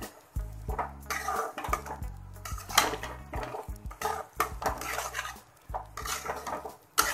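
A metal spoon scraping and clattering against a metal kadai as prawns in thick curry masala are stirred, in a run of irregular strokes, with a sharp knock on the pan near the end.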